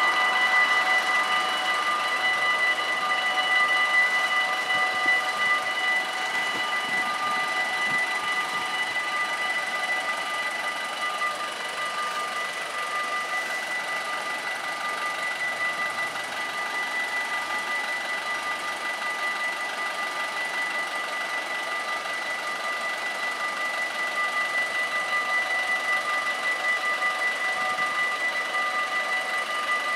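Dutch level-crossing warning bells ringing continuously in a fast, even, steady ring, warning of an approaching train. A broad rushing noise fades away over the first few seconds.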